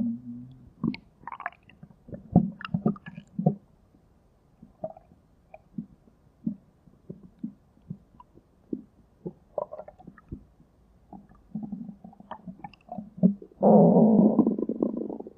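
Stomach noises: a string of short, scattered gurgles and pops for most of the stretch, then a loud, drawn-out stomach rumble starting about two seconds before the end.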